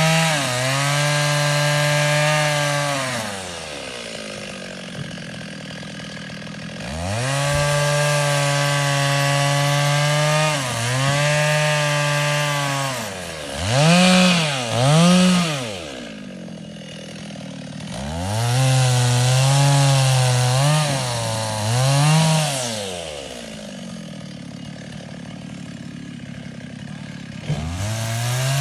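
Engine-driven wood-cutting saw running at high revs and cutting, its pitch dipping and recovering several times. It drops back to a quieter idle three times between cuts.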